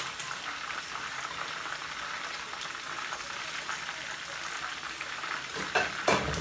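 Meat frying in oil in a pan, a steady crackling sizzle. Two short knocks come near the end.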